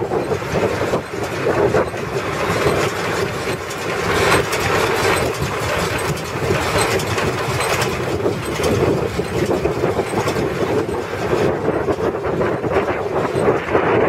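A John Deere 535 round baler running under tractor power, with a steady mechanical clatter over the tractor engine's running.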